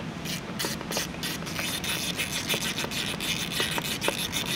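Hand ratchet clicking rapidly, turning a 4 mm wobble Allen bit on the injector seal-plate bolts of a diesel engine. The ticks start sparse and run into a near-continuous clicking after about a second and a half.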